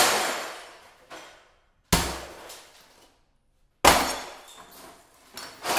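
Sledgehammer blows smashing objects, about two seconds apart, each a sharp crash followed by a clatter of breaking pieces that dies away.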